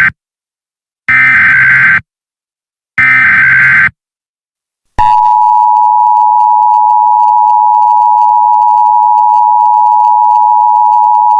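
Emergency Alert System tones: the end of one SAME header data burst, then two more bursts of about a second each with a second of silence between them. About five seconds in, the steady two-tone EAS attention signal starts and holds.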